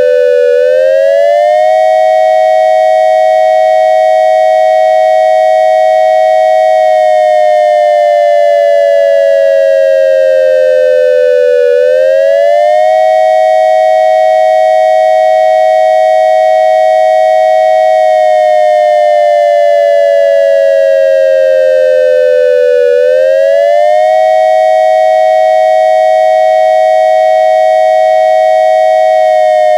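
Synthesized dual-tone electronic siren built from a triangle wave, imitating an ASC digital siren controller's attack signal. Two tones a short interval apart rise quickly, hold for about five seconds, then slide slowly down, and the cycle repeats about every eleven seconds, three times over.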